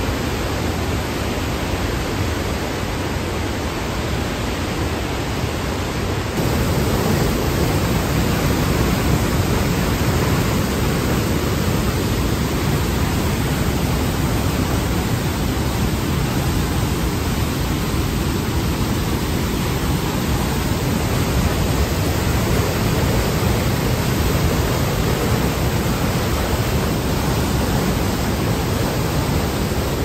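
Athabasca Falls: a large waterfall and its rapids making a loud, steady rush of water. The rush gets louder about six seconds in.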